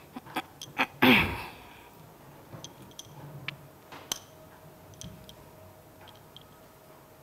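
A single sneeze from a woman about a second in, a short loud burst whose pitch drops. It is preceded by a few light clicks, and scattered faint clicks of pen and phone handling follow.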